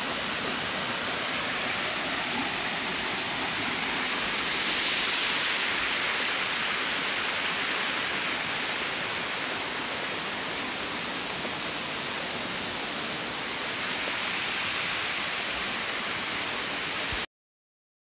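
Steady rushing of a small waterfall and the cascading mountain stream below it, swelling slightly about five seconds in. The sound cuts off abruptly near the end.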